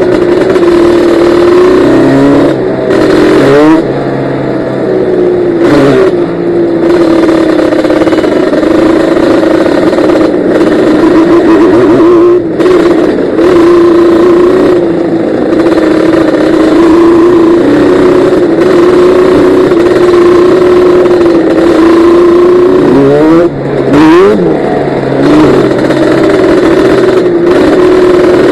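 Yamaha Banshee ATV's two-stroke twin-cylinder engine running loud at a steady cruising pitch. It briefly drops and climbs in pitch several times in the first few seconds, and revs up and down again a few seconds before the end.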